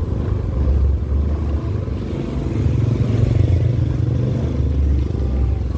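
Low, steady rumble of idling truck engines.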